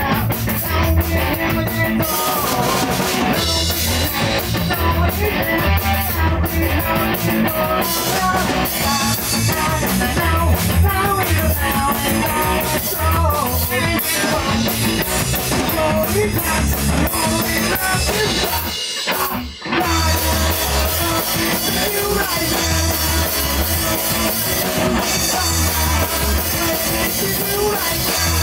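Rock band playing live in a small rehearsal room: drum kit, electric guitar and bass. The band cuts out for a moment about two-thirds of the way through, then comes straight back in.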